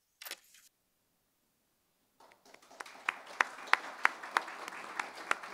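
Applause from a small group, starting about two seconds in, with individual hand claps standing out.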